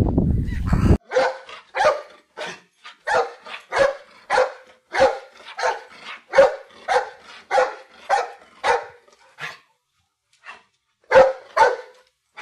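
A dog barking repeatedly, about two barks a second, with a short pause near the end before a few more barks. A low rumbling noise fills the first second.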